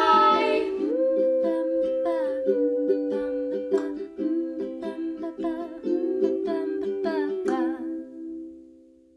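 Background music of plucked strings, ukulele-like, playing a light tune over held chords and fading out near the end.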